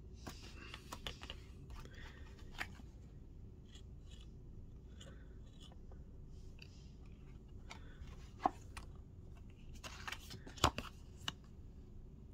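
Handling noise of plastic sunglasses and a playing card: scattered faint clicks and rustles, with two sharper clicks and a brief cluster of them in the second half.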